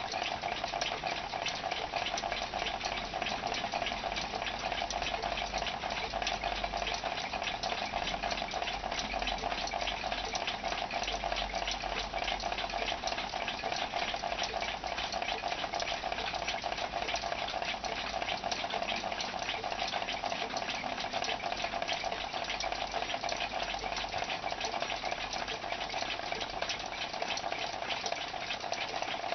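Remington rolling-numbers alarm clock making a steady, unbroken buzzing rattle.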